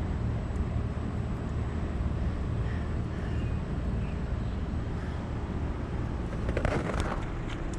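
Outdoor air-conditioner units running: a steady low hum of compressor and condenser fan with a whoosh of moving air. A brief rustle of handling or wind near the end.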